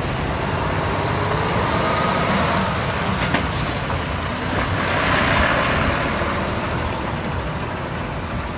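Heavy cargo truck's diesel engine running as the truck drives slowly past at close range, growing louder as it comes alongside and easing off as it moves away. A short sharp pop sounds about three seconds in.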